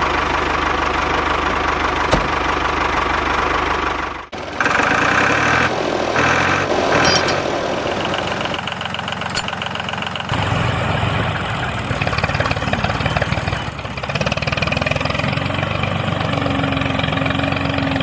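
A mini tractor's engine running steadily, with a brief drop about four seconds in and a change in tone about ten seconds in.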